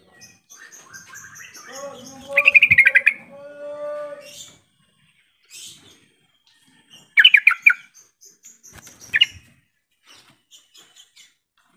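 Yellow-vented bulbul calling: short bursts of rapid bubbly notes, loudest about two and a half seconds in and again about seven seconds in, with softer chattering and falling notes between.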